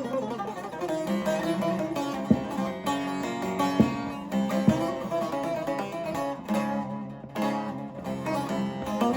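Divan bağlama, a large long-necked Turkish lute with a carved chestnut bowl, being played: a quick plucked melody over a steady low drone, with a few sharp strokes across the strings.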